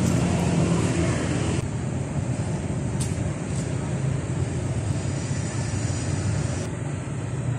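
Road traffic passing, with a vehicle engine running steadily close by as a low drone. A higher hiss cuts out a little under two seconds in.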